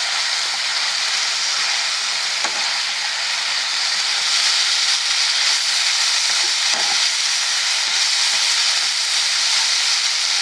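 Fried chicken pieces sizzling hard in a kadai of chilli sauce and oil over high heat, stirred with a spoon that gives an occasional light scrape or knock against the pan.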